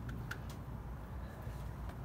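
A few light clicks and taps of metal parts being handled while a supercharger and its mounting bracket are fitted into an engine bay: four in the first half second and one near the end, over a low steady rumble.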